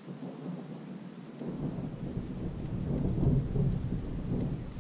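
Rolling thunder rumbling, swelling about a second and a half in to its loudest around the middle and easing off near the end, with rain falling.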